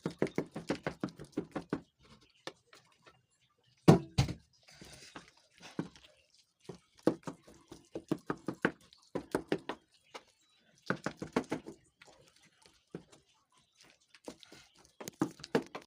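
Indistinct, muffled voices in bursts, with one sharp knock about four seconds in.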